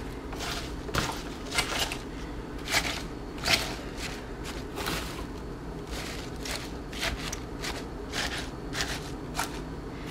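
Handfuls of spring-mix salad greens rustling and crinkling as they are dropped and pressed down into plastic containers, with irregular soft crackles and taps against the plastic. The crackles are louder in the first few seconds.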